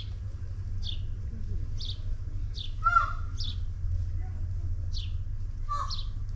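A small bird chirping repeatedly, short high notes about once a second, with a lower call about halfway through and again near the end, over a steady low rumble.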